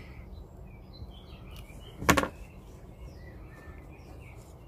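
Small birds chirping now and then outdoors over a low background hiss, with one sharp knock about two seconds in.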